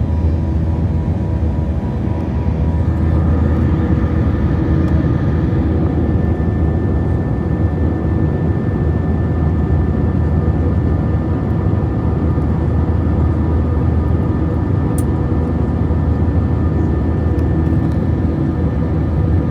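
Airbus A321 jet engines running steadily: a loud low rumble with a chord of steady engine whine held throughout, growing slightly louder about three seconds in.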